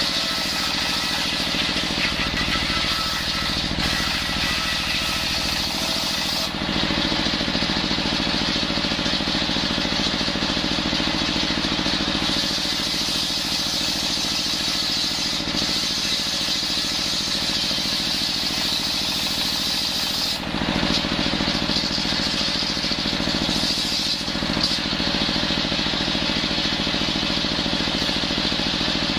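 Engine-driven table circular saw running steadily and ripping coconut wood into rafter boards: the blade's cutting noise over the constant drone of the motor. The tone changes a couple of times as the board moves through the cut.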